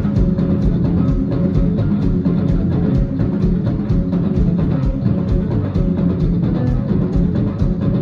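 Live band playing: a drum kit keeps a fast, steady beat under amplified guitar.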